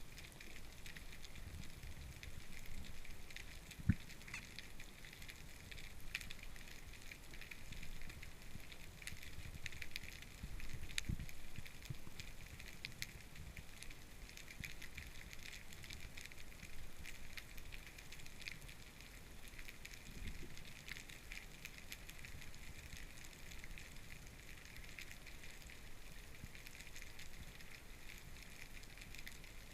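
Underwater ambience heard through a camera housing: a constant fine crackling and clicking. A sharp knock comes about four seconds in and a duller thump around eleven seconds.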